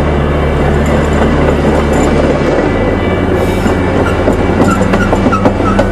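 Diesel-hauled train rolling by close at hand: a steady low engine hum under the clatter of wheels over the rails, with a few brief high wheel squeals near the end.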